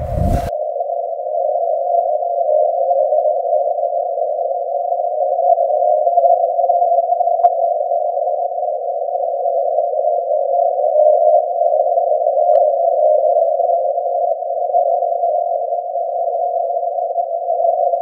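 Amateur radio audio: a steady, unbroken mid-pitched tone with a rough, hissy edge, not keyed on and off, with two faint ticks partway through.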